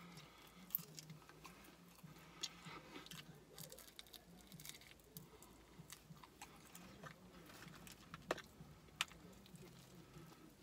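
A person biting and chewing a fried chicken wing close to the microphone. It is quiet, with scattered small crunches and mouth clicks.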